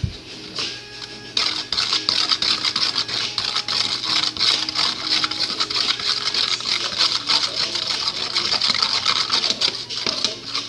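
A spoon stirring borax mix in a plastic bowl, rapid scraping and clicking against the sides, steady and brisk from about a second and a half in.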